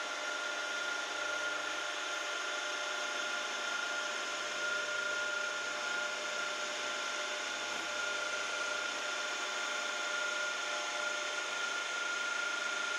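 Milling machine running a small end mill that cuts a shallow slot across the threads of a threaded air-rifle part, only as deep as the threads. It makes a steady high-pitched whine over a hiss.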